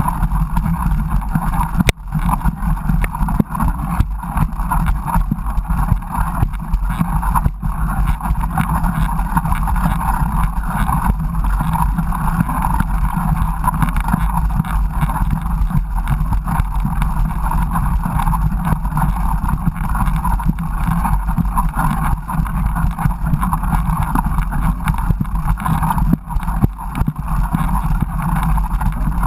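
Steady wind rushing over the action camera's microphone while a mountain bike is ridden, with a couple of short knocks from the bike.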